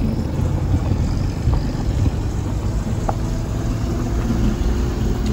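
Car driving, with a steady low engine and road rumble heard from inside the cabin.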